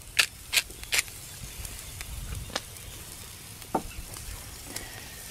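Steady sizzle of food cooking over hot wood coals: scrambled eggs in a cast iron skillet and steaks on the grill grate. A few sharp clicks sound in the first second, then two single clicks later on.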